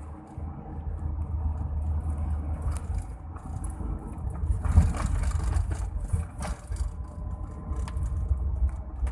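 Car cabin noise while driving: a steady low engine and road rumble, with scattered knocks and rattles, the loudest about five seconds in.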